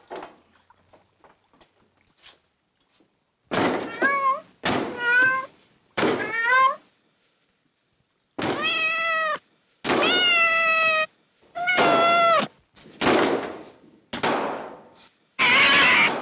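A cat meowing about nine times in a row, starting a few seconds in. The first meows are short and rise at the end, later ones are longer and drawn out, and the last is a rougher yowl.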